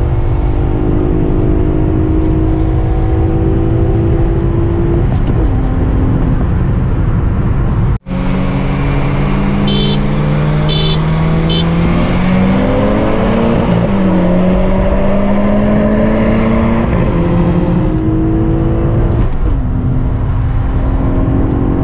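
Acura TL SH-AWD's 3.7-litre V6, breathing through a J-pipe and Borla mufflers, pulling hard through the gears of its six-speed manual, heard from inside the cabin. The engine note climbs and drops at each upshift, and the sound breaks off for a moment about eight seconds in.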